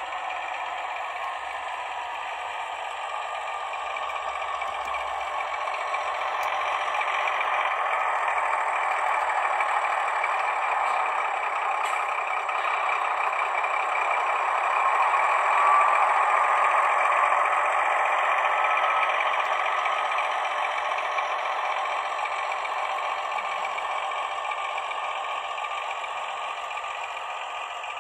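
H0-scale model of a DR class 106 diesel shunter running along the track: a steady motor whir and wheel-on-rail noise that grows louder as it passes close, loudest about halfway through, then fades.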